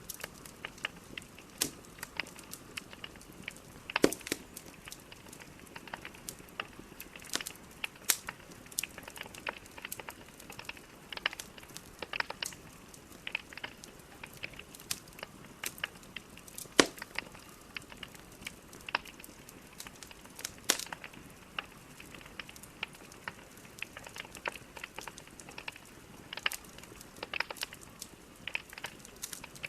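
Burning logs crackling in a fireplace: frequent irregular snaps and pops over a low steady hiss, with a few louder cracks.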